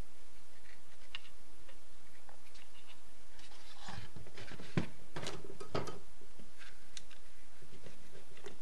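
Small clicks and scrapes of a rubber oil hose being pushed and worked into a hole in the plastic crankcase housing of a Stihl MS 210/230/250 chainsaw. The handling knocks grow louder and closer together about four to six seconds in, over a low steady hum.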